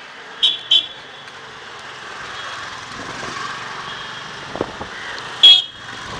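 Vehicle horn beeps: two short, quick high-pitched toots about half a second in and a louder single toot near the end, over a steady street hiss.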